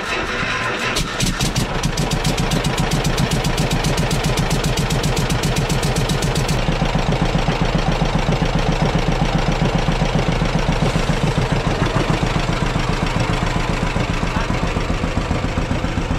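John Deere two-cylinder tractor engine running with a steady pulsing exhaust beat.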